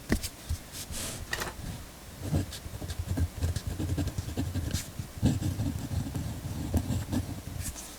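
Pentel GraphGear 1000 mechanical pencil with 0.4 mm lead writing on paper in irregular strokes, after a few sharp clicks in the first second and a half.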